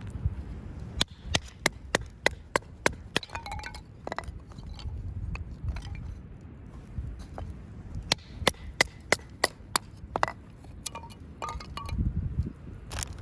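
Firewood being chopped into kindling: sharp wooden knocks and cracks in two quick, even runs of about three a second, one near the start and one in the middle.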